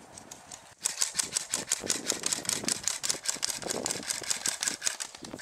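Airsoft guns firing: a rapid, irregular run of sharp clicky shots, starting about a second in.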